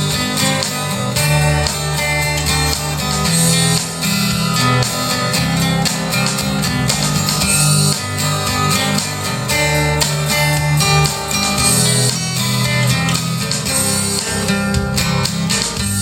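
Instrumental opening of a guitar-led song, strummed and plucked guitar over a steady bass line, played back through a JVC CA-DXT9 hi-fi system.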